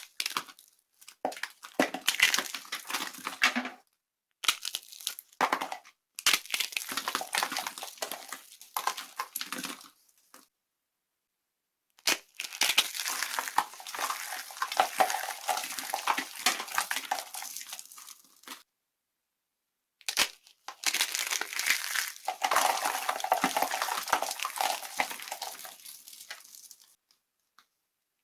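Dry soap being crushed and crumbled, a dense crackling crunch made of many small snaps. It comes in four passages broken by sudden silent gaps.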